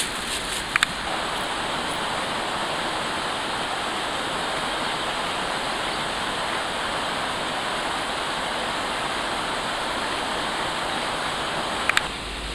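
Steady, even rushing noise with no rhythm in it, broken by two sharp clicks, about a second in and near the end. No regular saw strokes stand out.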